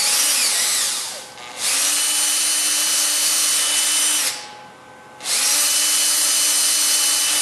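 Cordless drill with a countersink bit cutting countersinks for hinge screws in a wooden door panel. It runs in three steady bursts, stopping briefly about a second in and again a little past four seconds.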